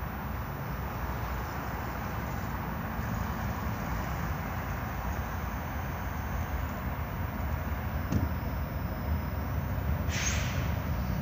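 Norfolk Southern freight train with three GE diesel locomotives approaching: a low, steady rumble that grows slowly louder. There is a brief high hiss near the end.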